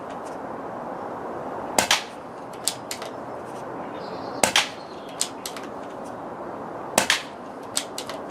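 Three air rifle shots about two and a half seconds apart, each a sharp crack followed by a few fainter clicks.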